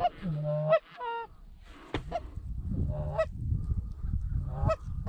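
Canada geese honking and clucking: a rapid series of short two-note honks, each breaking sharply upward in pitch, with a low steady tone under a few of them.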